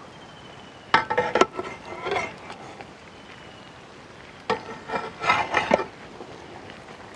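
Large metal ladle scraping and clattering against a big aluminium biryani pot as it scoops and turns cooked dum biryani, in two bouts: about a second in and again just past halfway.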